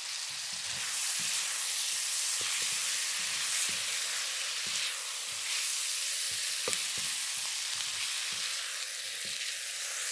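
Vegetables and sauce sizzling in an electric wok while they are stir-fried with a plastic spatula: a steady hiss with scattered light knocks and scrapes of the spatula against the pan.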